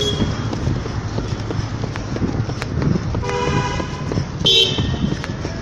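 Two short horn toots, the first about three seconds in and the second about a second later, over a steady outdoor rumble.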